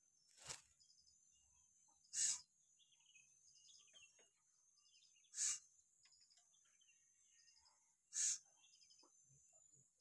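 A black-capped lory giving short, harsh calls, four of them spaced about three seconds apart, over a steady high-pitched insect buzz.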